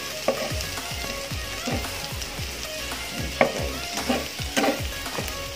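Chopped garlic sizzling as it toasts in hot oil in a stainless steel pan, with a plastic spatula scraping and stirring it every half second to a second; the loudest scrape comes a little past the middle.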